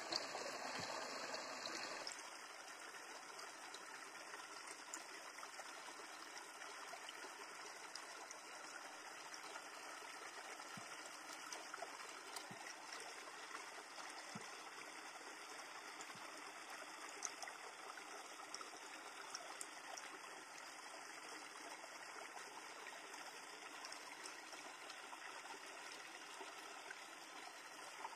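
Shallow river flowing over rocks: a steady trickling rush of water that drops a little in level about two seconds in, with a few faint clicks.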